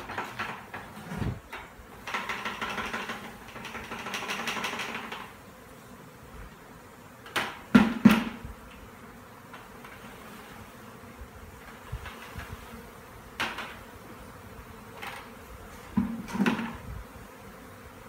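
A honey bee swarm buzzing as it is shaken out of a plastic bucket onto a wooden hive box, with sharp knocks of the bucket, the loudest about eight seconds in and another pair around sixteen seconds in.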